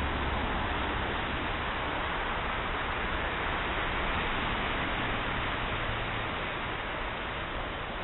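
Steady rushing noise of the Deerfield River's flowing water.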